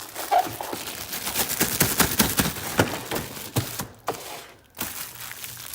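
Plastic packaging crinkling and crackling as a new cabin air filter is unwrapped by hand, in dense, rapid crackles that pause briefly about four seconds in.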